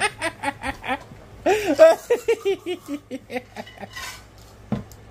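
People laughing in quick, high-pitched bursts, with a louder squeal about a second and a half in; the laughter dies away after about three and a half seconds, and a soft thump follows near the end.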